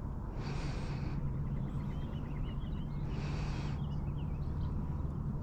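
Slow breathing close to the microphone: three soft breaths at even intervals over a low steady hum.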